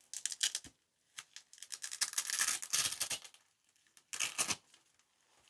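Very strong Velcro fastener on a makeup brush pouch being pulled apart in three tears: a short one at the start, a longer one about two seconds in, and a brief one about four seconds in.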